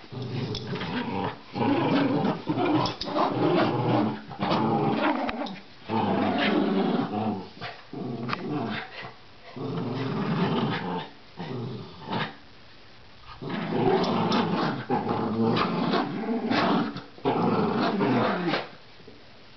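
Rat terriers growling in play as they tug on a toy, in rough bouts of a second or two with short breaks between, dying down near the end.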